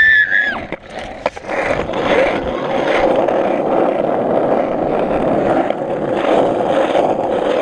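Skateboard wheels rolling over asphalt: a steady rumble that sets in about a second and a half in, after a couple of sharp clicks. A short high yell right at the start.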